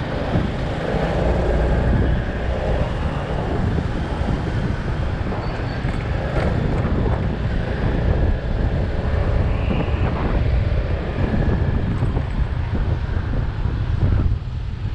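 Wind buffeting the microphone of a moving motor scooter, a steady low rumble with the scooter's engine and road traffic underneath.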